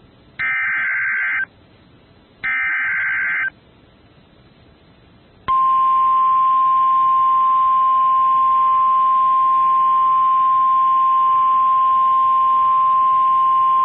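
NOAA Weather Radio Emergency Alert System activation: the last two of the three one-second SAME header data bursts, each followed by a one-second gap. About five and a half seconds in, after a two-second pause, the steady 1050 Hz warning alarm tone starts and holds. It signals that a severe thunderstorm warning is about to be broadcast.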